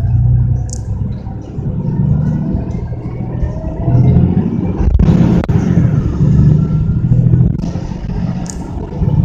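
Mercedes-Benz single-deck bus running on the road, heard from inside the passenger saloon: a loud, steady low engine and drivetrain note that steps up and down in pitch, with road noise. There is a sharp knock about five seconds in.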